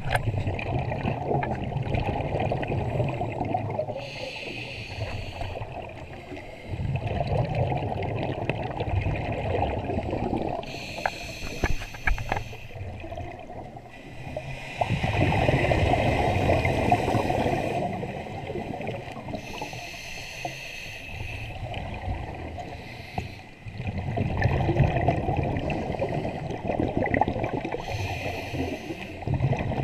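Scuba diver breathing through a regulator, heard underwater: slow breaths, each a short hissing inhale followed by a few seconds of low bubbling as the exhaled air escapes, repeating about every eight seconds.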